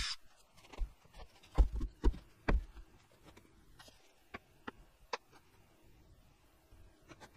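A cordless drill's run cuts off right at the start, followed by a handful of knocks and clunks as tools and the wooden cabinet frame are handled on a workbench, the loudest about a second and a half in, then a few light clicks.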